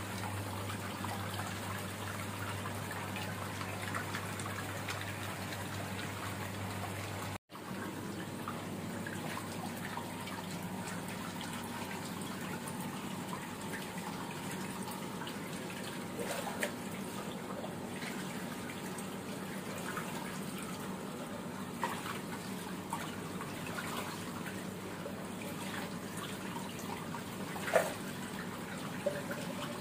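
Rinse water pouring steadily from a PVC drain pipe onto a tiled floor as a water-filter tank is backwashed until the water runs clear. A few sharp clicks come later, with one louder knock near the end.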